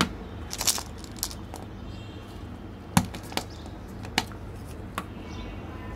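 Hands handling candies and a hollow plastic toy ball on a tabletop: scattered sharp clicks and taps, the loudest about three seconds in, over a steady low hum.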